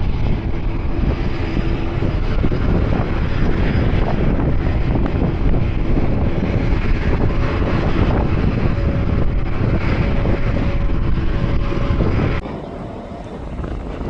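Regional jet's turbofan engines running loud and steady, a dense rush with a faint whine. The sound drops off abruptly about twelve seconds in, leaving a quieter wind-like hiss.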